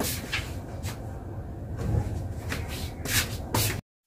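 Bedding being handled: cloth rustling and swishing as quilts are pulled off a bed from under a mosquito net, with a few short knocks. The sound cuts off abruptly near the end.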